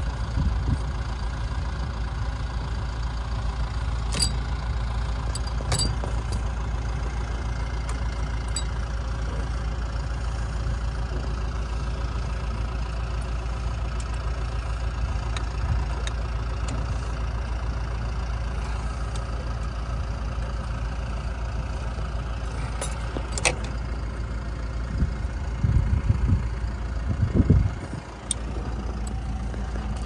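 Massey Ferguson 5S.145 tractor engine idling steadily, with a few sharp metal clicks from hands working on the square baler's knotter and some low bumps near the end.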